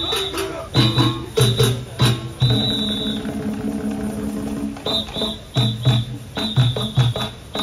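Live drum troupe performance: hand drums struck in a driving rhythm with short, high whistle blasts on the beats, the drumming easing off for a couple of seconds in the middle under lower held tones before the strikes pick up again.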